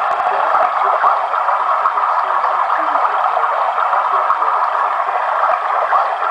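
Alarm clock's small built-in speaker playing a running-water nature sound: a steady, even rushing hiss that sits in the middle range with no low end.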